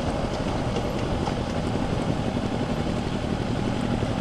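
Motorcycle engine running steadily at low revs as the bike rolls slowly in traffic, under a steady hiss of wind and road noise.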